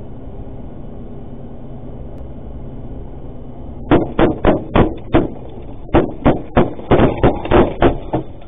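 Steady road and engine noise inside an armoured cash-in-transit vehicle at highway speed, then, about four seconds in, a rapid series of sharp gunshots. About a dozen shots come at roughly three a second, with a brief break partway: rifle fire aimed at the vehicle during a robbery attempt.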